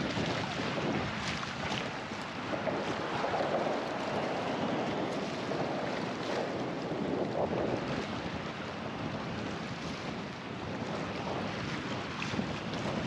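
Wind buffeting the microphone over choppy sea water: a steady rushing noise that swells and eases.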